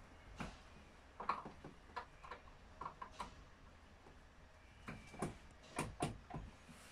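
Faint, irregular metallic clicks and ticks as a chainsaw's bar and chain are handled and adjusted with a hand tool, the clicks coming closer together in the second half.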